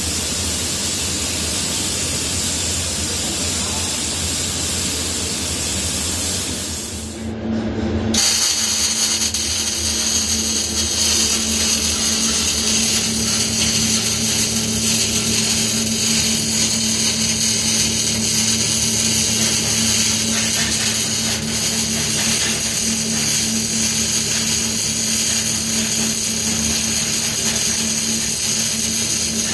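Steady workshop noise that changes abruptly about seven seconds in to a power tool running with a steady whine.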